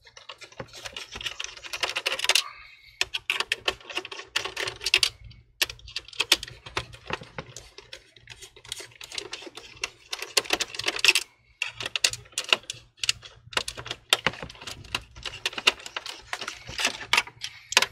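Screws being unscrewed by hand with a screwdriver from the stand mount of an all-in-one computer: a run of small, irregular clicks and ticks in short spells, with brief pauses.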